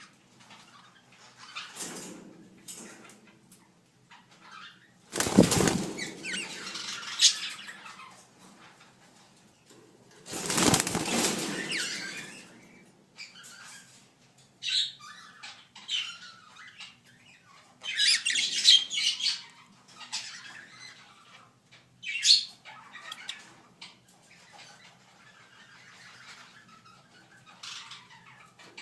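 Caged parrots flapping their wings in loud rushes of a second or two, twice, with short squawks and chirps in between.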